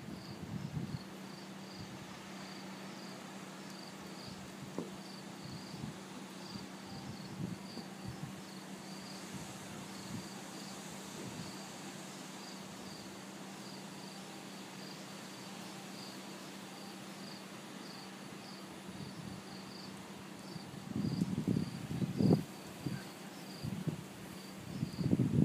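Insect chirping steadily, evenly repeated short high chirps, over a steady low hum. Near the end come a few louder low rumbling gusts, wind buffeting the microphone as a typhoon approaches.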